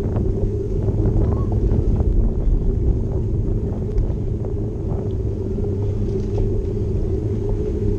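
Small motorboat engine running steadily at an even pitch, heard from on board while the boat moves along the river.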